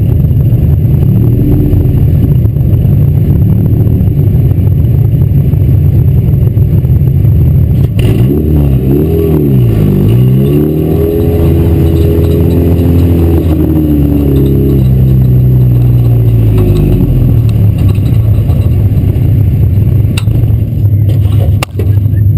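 Four-cylinder mini stock race car engine running loud and hard on a dirt track, its revs dipping and rising twice about eight to ten seconds in, then easing down and holding steady.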